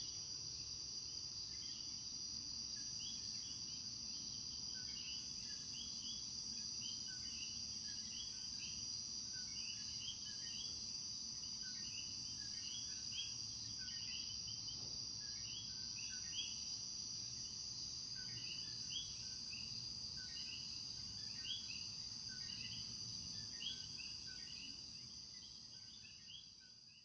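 Night chorus of coquí frogs, many short two-note 'co-quí' calls overlapping, over a steady high-pitched insect drone. The sound fades out near the end.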